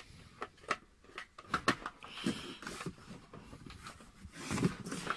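Handling noises: scattered clicks and knocks as a telescope tube with its plastic dust cap is handled and shifted against its cardboard packing.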